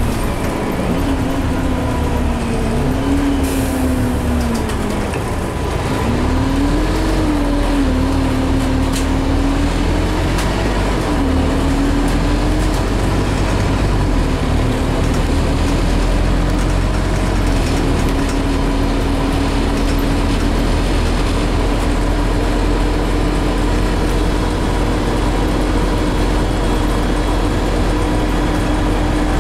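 Scania CN280UB city bus driving, heard from inside its cabin: a low rumble of engine and drivetrain with a whine whose pitch rises and falls several times, dips about five seconds in, then holds steady through the second half.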